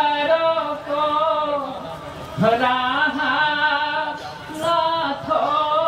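Slow, chanted singing of a Bhaona devotional song: three long held phrases, each sliding up into its note.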